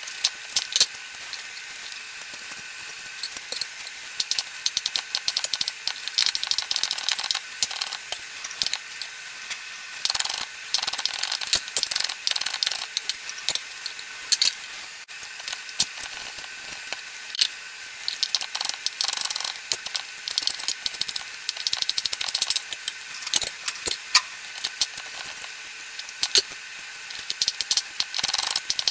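Chef's knife chopping green and red bell peppers on a wooden cutting board: rapid, irregular knife strikes against the board, in quick runs with short pauses.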